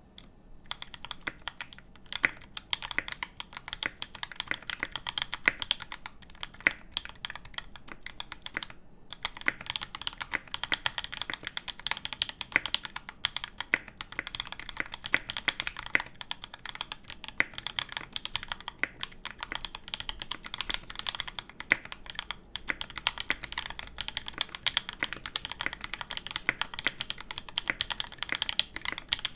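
Steady typing on a Satisfaction 75 R2 custom mechanical keyboard, built with lubed Moss linear switches, GMK Camping keycaps and a brass plate in a burger-plus-gasket mount: a rapid, uneven stream of key clacks. It breaks off briefly about a third of the way in and again about three quarters of the way in.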